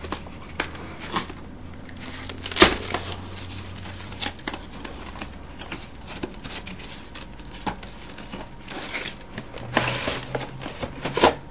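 Cardboard retail packaging of a universal remote being opened by hand, the tape on its flap pulled off: scattered crinkles and clicks of card and plastic, with one sharp snap about two and a half seconds in and louder rustling near the end as the inner tray slides out.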